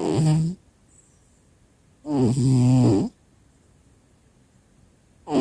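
A cat snoring, with pitched snores about every two and a half seconds: one at the start, a longer one about two seconds in, and a third beginning near the end.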